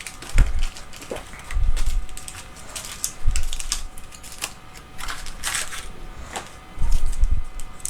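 Photo paper packets pulled apart and opened by hand: scattered crinkles and clicks, with a few dull bumps.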